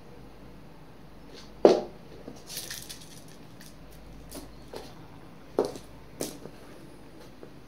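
Irregular soft thumps and scuffs of a cat pouncing and scrambling after a wand toy on a hard floor, the loudest thump about a second and a half in and two more a little before and after six seconds.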